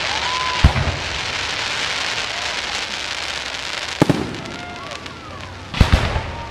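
Aerial fireworks display: shell bursts bang about half a second in, at four seconds, and twice in quick succession near the end, over a steady crackling hiss that fades after the second bang.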